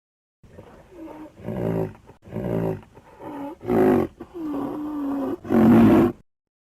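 Rhinoceros vocalising: a run of about six pitched calls, mostly short, with one longer held call near the end. The last call is the loudest and stops abruptly.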